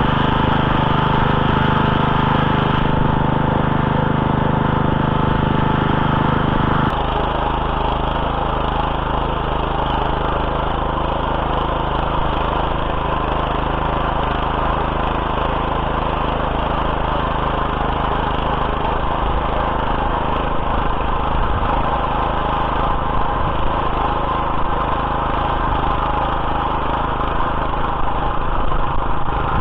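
Small petrol motor-cultivator (garden tiller) engine running steadily as it works the soil, its sound shifting in tone about seven seconds in.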